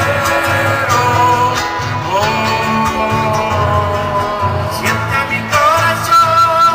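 Live Argentine folk music: several acoustic guitars strumming under sung vocals with long held notes, heard amplified over a stage sound system.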